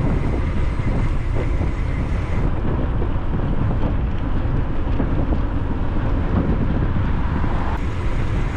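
Wind buffeting the microphone while riding: a loud, steady low rumble.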